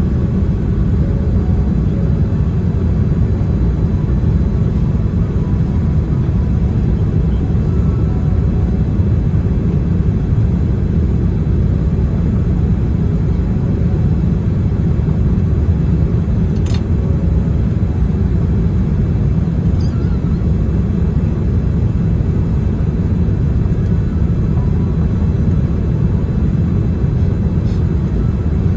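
Steady low rumble of engine and airflow noise heard inside the cabin of a Boeing 787-10 in flight.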